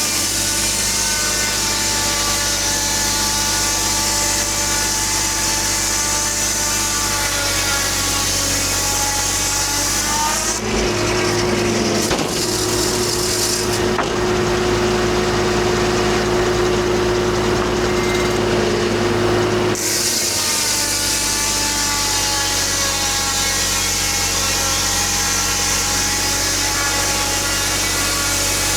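Homemade circular sawmill blade cutting lengthwise through a big white pine log, its whine sinking slowly in pitch as the blade bogs under the load. About ten seconds in, the cut ends and the blade spins free with a steady hum for about nine seconds. Then a new cut begins and the pitch starts sinking again.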